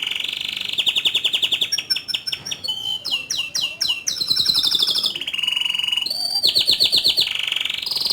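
Domestic canary singing a long, continuous song of rolling trills and fast runs of repeated notes, with a cluster of quick falling notes midway and a short steady whistle just after.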